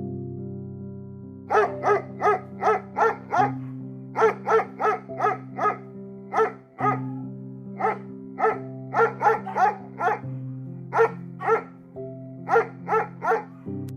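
A dog barking in quick runs of short, high-pitched yaps, about three a second, over background music.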